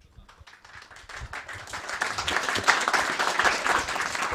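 Audience applauding, the clapping building over the first two seconds and then holding steady.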